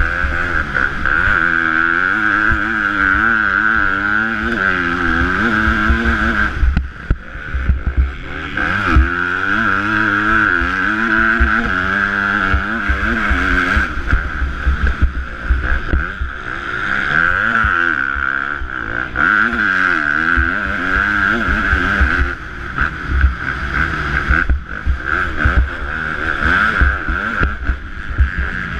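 KTM 250 cc four-stroke motocross bike's engine revving up and down over and over as it is ridden around the track, the pitch rising and falling in quick waves with brief drops between runs.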